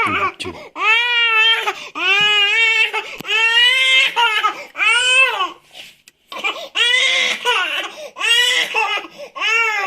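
Baby crying hard in a run of loud, high-pitched wails, each about a second long, with a short break for breath about six seconds in.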